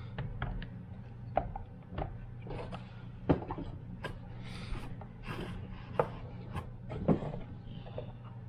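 Handling noises from refitting part of a jump starter pack's plastic housing: irregular clicks, taps and rubbing, with a few sharper knocks.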